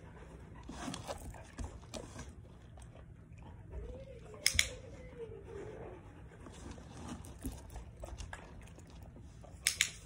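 A dog-training clicker gives two sharp double clicks about five seconds apart, marking the dog's nose-touches on a target. Between them a dog chews and licks its treats.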